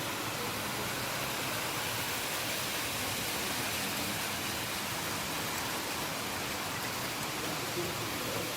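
Model train running along a layout's track: a steady, even noise with no distinct beat or tone.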